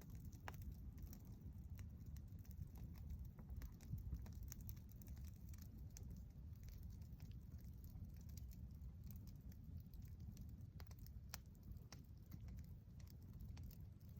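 Campfire crackling: irregular small sharp pops and ticks over a low steady rumble, faint overall.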